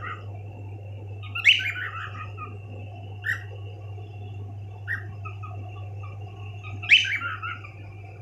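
Pet cockatiels chirping: two longer calls that step down in pitch, about a second and a half in and about seven seconds in, with two short single chirps between them, over a steady low hum.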